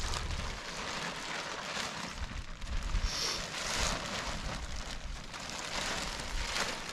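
Wind blowing on the microphone: a steady rushing noise with an uneven low rumble.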